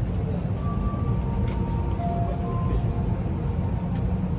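Steady low rumble of an Airbus A321neo's cabin ventilation while the airliner is parked at the gate, with a faint click about one and a half seconds in.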